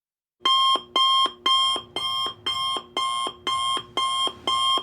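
Electronic alarm beeping: eight short beeps, about two a second, each a bright high tone that drops to a brief low tone, then stops suddenly.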